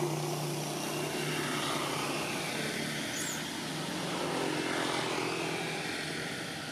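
An engine running steadily, a low drone, with a brief high chirp about three seconds in.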